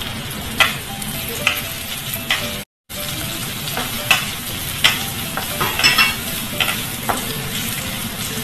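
Diced Chinese sausage and ginger sizzling in a little oil in a pan, stirred with a wooden spatula that scrapes and taps against the pan now and then. The sound cuts out completely for a moment a little under three seconds in.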